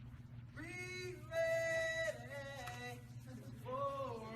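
Intro music opening with a singing voice holding long notes that slide from one pitch to the next, over a steady low tone.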